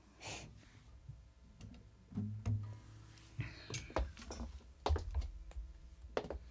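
Quiet handling noises: an acoustic guitar being set down on its stand, with a brief low ring from its strings about two seconds in, then scattered light clicks, knocks and soft thumps of movement as the player shifts from the guitar.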